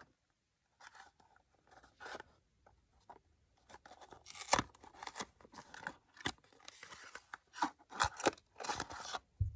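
A small cardboard box of Scotch Magic Tape being opened by hand: irregular crackling, scraping and tearing of the carton. It starts about a second in, with several sharper rips in the second half.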